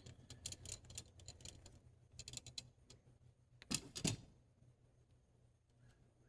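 Small clicks and creaks of hex screws being driven into a plastic case, threading the plastic, with two louder knocks close together about four seconds in.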